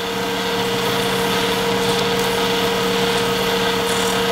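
Small wood lathe running steadily, with a constant motor hum over a light hiss, while fine wet silicon carbide paper is held against the spinning stopper blank.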